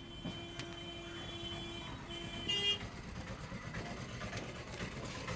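Vehicle horns in street traffic: a steady honk held for about two seconds with a short break, then a brief, louder toot, over a low rumble of traffic.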